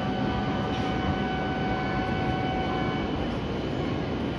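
Steady electronic door-closing warning tone, held on several pitches and stopping about three seconds in, over the constant hum of an E7-series Shinkansen standing at the platform.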